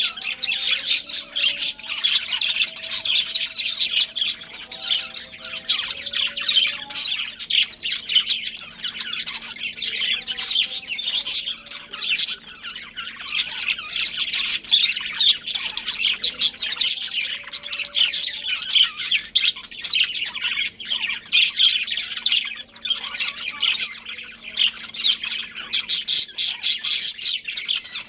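Budgerigars chirping and chattering continuously in quick, overlapping high chirps and squawks, with occasional lower whistled notes.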